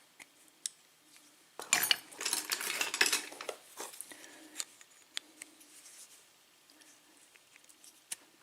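Small metal tool scraping and clicking against a padlock's core as its retaining clip is worked off. There is a burst of metallic scraping and clinking about two seconds in, then scattered light ticks.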